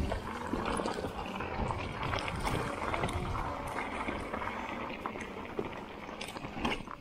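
Mountain bike riding over rocky, gravelly singletrack: tyres crunching on loose stones and the bike rattling, with many sharp clicks and knocks, over a low rumble of wind on the camera microphone.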